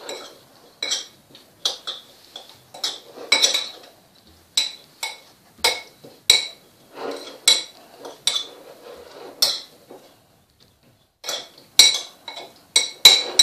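A utensil clinking and scraping against a deep plate while stirring sliced raw potatoes in oil and seasoning. The clinks come irregularly, about one or two a second, each ringing briefly, with a short pause about ten seconds in.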